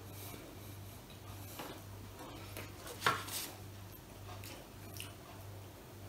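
Quiet clinks and ticks of cutlery and a metal saucepan being handled at the table, with one sharper clank about halfway through.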